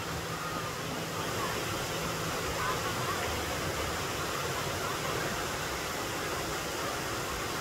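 Waterfall water rushing in a steady, even hiss, with faint voices in the background.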